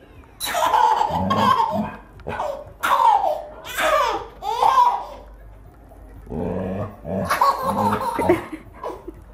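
A baby laughing hard in rapid bursts, in two long spells with a pause of about a second in between.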